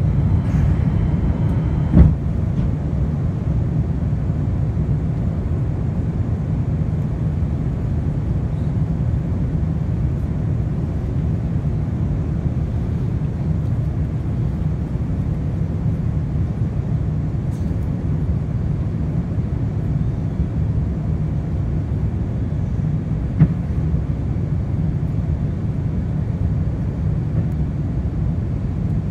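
Airbus A350 cabin noise on approach with the landing gear down: a steady low rumble with a softer hiss above it. Two brief sharp knocks cut through it, the louder about two seconds in and a fainter one near the end.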